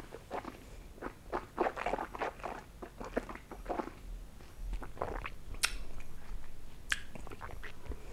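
Wet mouth noises of a sip of whisky being worked around the mouth and chewed: a run of small smacks and clicks, then a couple of sharper clicks later.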